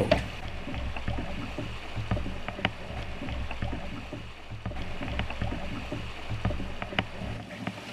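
Shallow river water rushing and splashing around a canoe as it is poled down a riffle over bedrock, with a low steady rumble and a few light knocks, the clearest about a third of the way in and again near the end.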